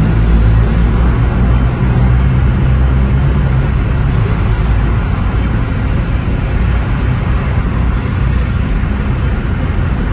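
Steady low rumble of a car driving along a road, engine and tyre noise heard from inside the cabin as it passes through a tunnel.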